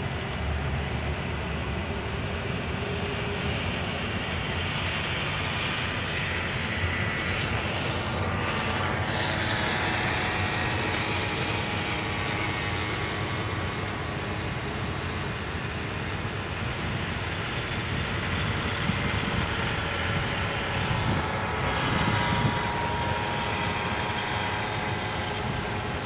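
Twin turboprop engines of an airBaltic Bombardier Dash 8 Q400 running as it taxis onto the runway: a steady whine of turbines and propellers made of several held tones over a rushing noise, swelling a little now and then.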